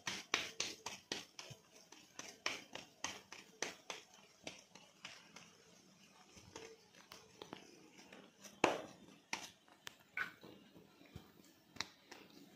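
Wet hands patting a ball of corn-flour dough between the palms to shape it: soft, rhythmic pats about two to three a second that thin out after about five seconds, with a louder pat about nine seconds in.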